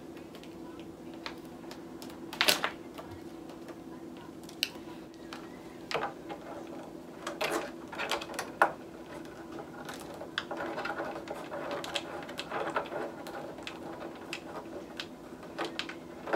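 Scattered clicks and knocks of plastic parts being handled and fitted onto a ring light's mount and stand, with a stretch of rustling about two-thirds of the way through. A steady low hum runs underneath.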